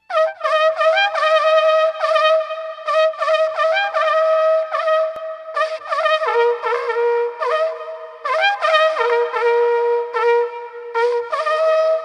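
A wind instrument with a horn-like tone plays a melody of short repeated notes, each scooping up into pitch, over a steady held note that drops lower about six seconds in.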